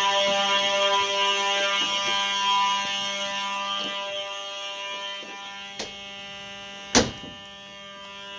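Simplex 4903-series fire alarm horns, the 9219 and 9236 horn/strobes, sounding a continuous buzzing horn tone that slowly gets quieter. A small click comes about six seconds in, and a sharp loud click about a second later.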